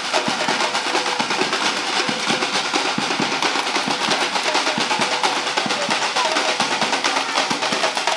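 A carnival drum line beating hand-carried drums in a fast, dense, continuous rhythm.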